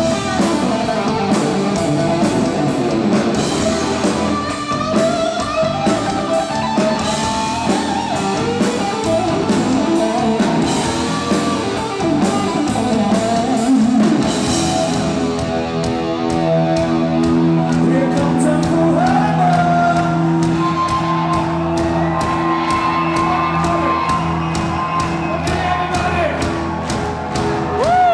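Live hard-rock band in a large hall: an electric guitar solo with fast, bending lead lines. About halfway through, the band settles into a long sustained chord, and a singer shouts a held note near the end.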